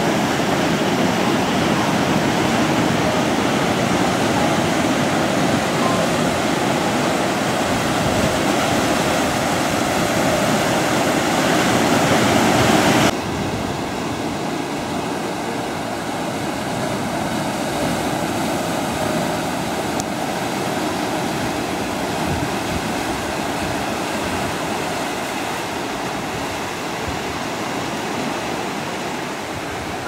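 Surf breaking and washing over a shore of dark rounded stones, a steady rushing of waves and foam. About thirteen seconds in, it drops suddenly to a quieter wash.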